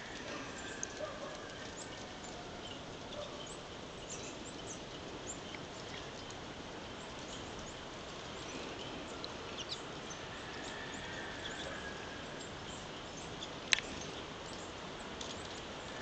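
Faint, scattered high chirps of small birds over a steady hiss, with one sharp click near the end.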